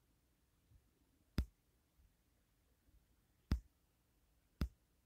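Three sharp clicks a second or more apart, fingertip taps on a phone's touchscreen, with near silence between them.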